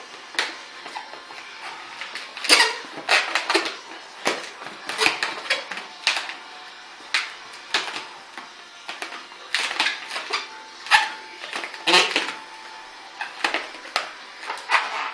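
Latex modelling balloon squeaking and creaking in irregular bursts as it is twisted and bent by hand.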